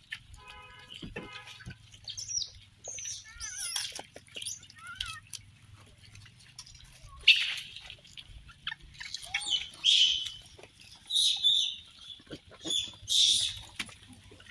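Rhesus macaques crowding for food, giving short high-pitched squeals and chirps, some sliding in pitch; in the second half several louder, harsher screeches come a second or two apart.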